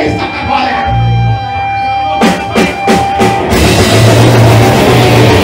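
Black metal band playing live: a held note over the bass, then a run of drum hits about two seconds in, and the full band coming in with distorted guitars and drums at about three and a half seconds.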